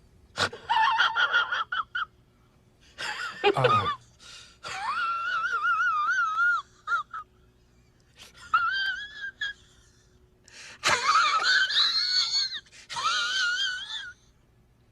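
A high-pitched, wavering voice-like sound effect, repeated in six phrases with short gaps, with a brief low falling sound under the second phrase.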